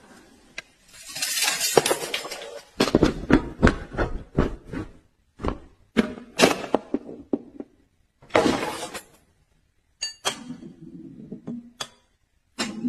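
Honda Accord car parts in a chain reaction: a run of metallic knocks, clinks and thuds as parts tip over and strike one another, with two longer rolling scrapes about a second in and about eight seconds in. There are short gaps between the strokes.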